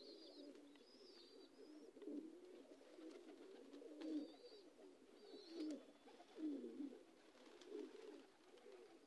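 Domestic pigeons cooing faintly: a string of low, soft coos, with a few faint high peeps above them.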